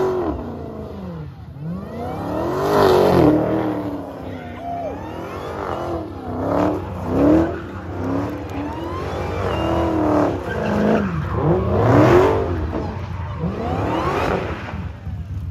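Dodge Demon's supercharged V8 revving up and falling back over and over while its rear tyres squeal through donuts, the revs swinging every second or two and loudest about three seconds in and again near twelve seconds.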